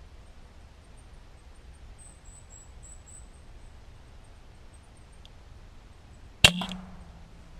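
A single shot from a BRK Brocock Ghost pre-charged air rifle near the end: one sharp crack, followed at once by a fainter knock and a brief low ring that fades.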